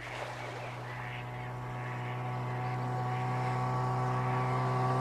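A small motorboat's engine running at a steady pitch, a constant hum that grows slowly louder as the boat draws nearer.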